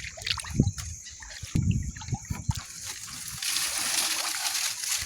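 Shallow water splashing and sloshing in irregular bursts, then a steadier hiss of running or trickling water from about three and a half seconds in.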